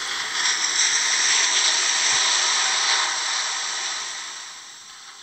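Toilet flushing: a rushing hiss of water that swells in the first second, holds, then fades away over the last two seconds.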